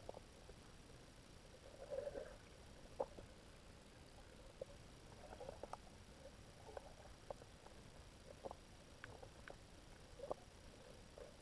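Faint underwater ambience heard through a submerged camera: a low hiss with scattered soft clicks and ticks at irregular intervals, a small cluster about two seconds in and a sharper click about a second later.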